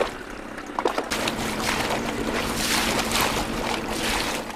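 A small boat moving through choppy water, with splashing and wind on the microphone; it gets louder and denser about a second in.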